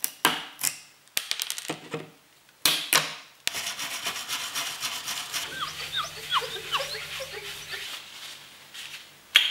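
Hand tools scraping and filing printed PLA plastic to clean it up: a run of short, sharp scrapes, then a continuous rasping with short squeaks, over a low hum in the second half.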